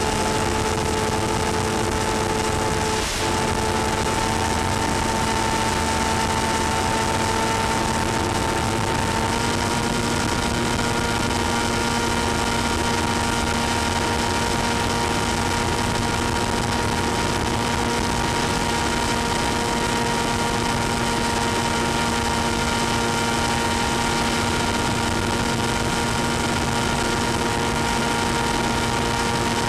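Electric motor and propeller of an FPV model airplane running steadily in flight, a constant whine over rushing air noise. The pitch steps up slightly about nine seconds in as the throttle is raised.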